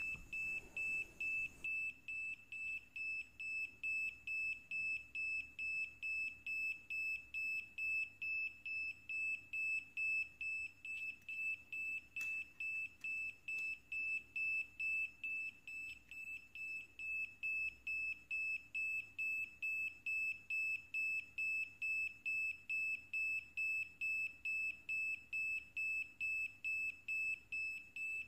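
Small buzzer on a homemade NE555/4017 tester board giving a steady string of short, high-pitched beeps, about two to three a second, pulsed by the NE555 oscillator; this repeated beeping is what the tester gives when the ICs are good.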